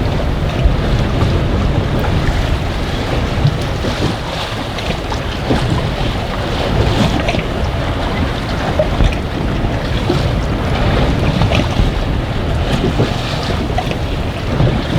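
Strong wind buffeting the microphone, over the wash of choppy water around the boat, with scattered small splashes.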